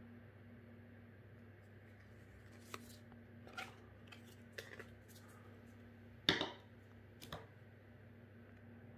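Faint, scattered clicks and snaps of trading cards and booster-pack packaging being handled, the loudest about six seconds in, over a steady low hum.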